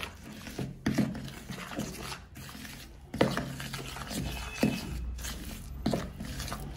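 A thick spice paste of ghee, ground masala and lemon juice being stirred in a bowl: irregular scraping and rubbing against the bowl, with a few sharp knocks.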